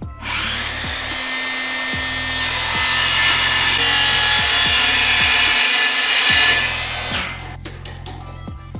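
Circular saw running along a guide rail, cutting through a large thin wooden panel. It starts just after the beginning, gets louder as the blade is fully in the cut, and stops about seven seconds in as the cut finishes. Background music plays underneath.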